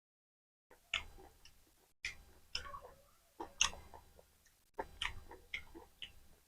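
Close-miked eating sounds: a person chewing mouthfuls of mutton curry and rice, with wet smacks and sharp mouth clicks in short clusters and dead silence between them.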